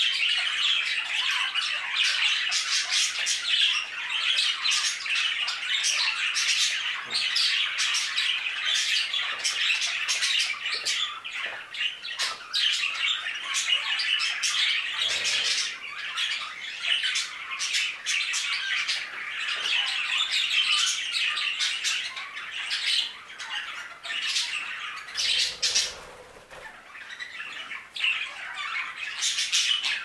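A flock of budgerigars chattering without pause, a dense tangle of warbles, chirps and squawks, thinning briefly about four seconds before the end.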